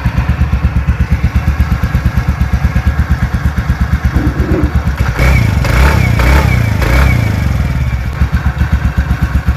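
TVS Ntorq 125 scooter's single-cylinder engine idling with an even pulse, just after its self-starter one-way bearing was replaced. About five seconds in it is revved up briefly a couple of times, then it drops back to idle.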